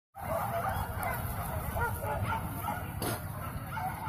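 Several pig-hunting dogs barking and yelping at once in many short, overlapping calls, over a steady low background noise.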